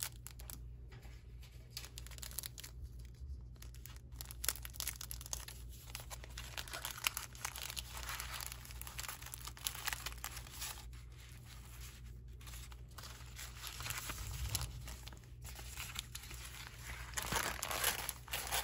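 Small clear plastic bags and a sheer drawstring pouch crinkling and rustling as jewelry is packed by hand, with irregular crackles that grow louder near the end. A faint steady low hum sits underneath.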